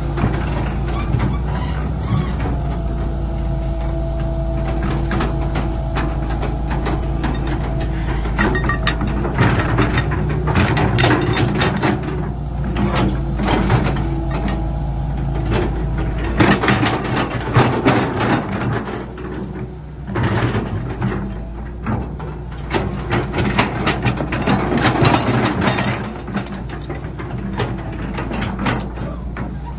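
Excavator engine running steadily, with repeated clanks and knocks of the machine working that grow busier in the second half; a faint steady whine sounds for a few seconds near the start.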